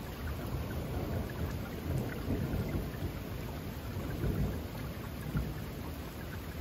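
Steady rain with a low rolling rumble of thunder that swells and fades twice.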